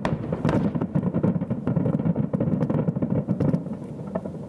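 Distant fireworks barrage heard from about 2 km away: many shell bursts running together into a continuous rumble, with sharp crackles and pops on top, easing slightly near the end.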